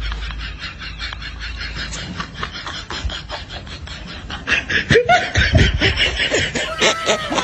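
Laughter: a fast, even run of short ha-ha pulses, with louder pitch-gliding sounds coming in about five seconds in.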